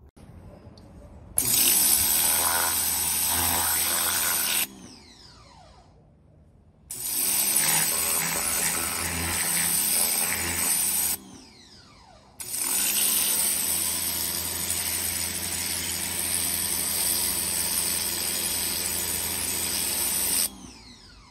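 Pressure washer spraying paving in three bursts of a few seconds each: a motor hum under the hiss of the water jet. Each burst stops abruptly, with the motor winding down in pitch between bursts.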